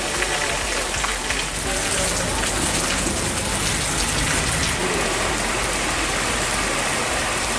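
Rain falling steadily on a wet road, an even hiss.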